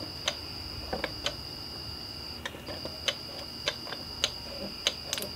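A dozen or so sharp, irregular clicks from a small metal oil can being squeezed, putting tool oil into a pneumatic framing nailer's air inlet. A faint steady high-pitched whine runs underneath.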